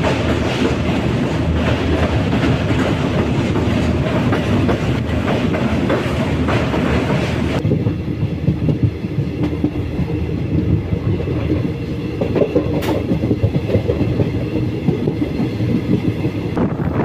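Moving passenger train heard from on board: a steady rumble of wheels on the rails with clickety-clack over the rail joints. About seven and a half seconds in, the high hiss drops away abruptly and the sound turns duller.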